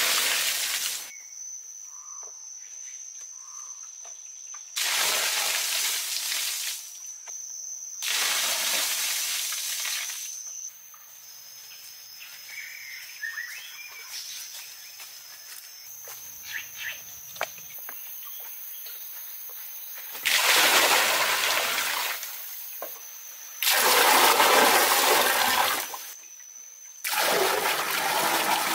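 Water poured from a clay pot splashing into a mud-plastered pool, in six separate pours of about two seconds each. Between the pours a thin steady high whine runs under the quiet forest background.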